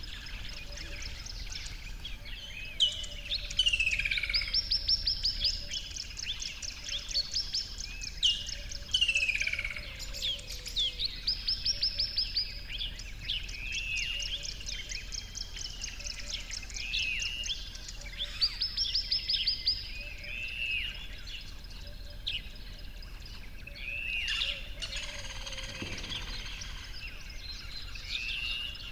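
Several songbirds singing: fast trills of repeated high notes that come back every few seconds, mixed with falling whistles and short arched calls.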